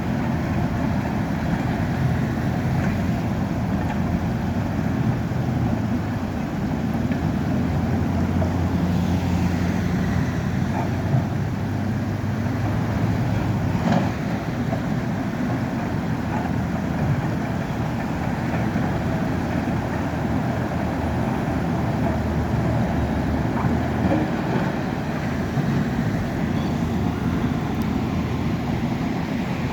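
Diesel engines of heavy earthmoving machines (a bulldozer and backhoe loaders) running steadily at work, the engine note shifting now and then. A sharp knock comes about halfway through.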